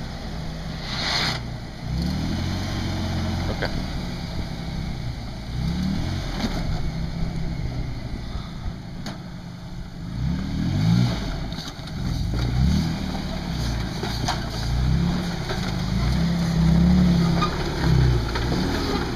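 Engine of a lifted 4x4 SUV rock crawling, its revs rising and falling over and over as the throttle is worked in short pulses, with a few sharp knocks along the way.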